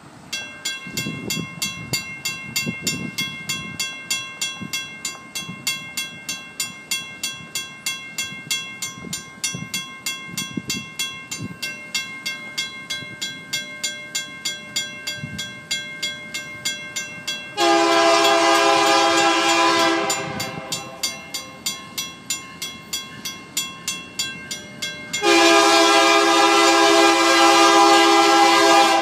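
A railroad crossing's WCH mechanical bell clangs steadily, a little over two strikes a second. An approaching BNSF locomotive's horn sounds over it in two long chord blasts, one after about 17 seconds and the other from about 25 seconds in, still sounding at the end.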